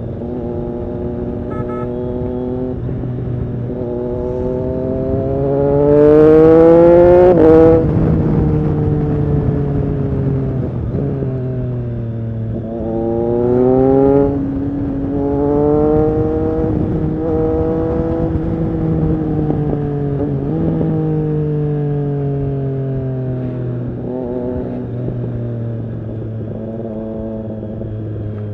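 Triumph Street Triple RS 765's three-cylinder engine through an SC-Project S1 exhaust, on the move. Its note rises sharply under hard acceleration to its loudest about seven seconds in and drops off suddenly, rises again around thirteen seconds, then falls slowly as the bike slows.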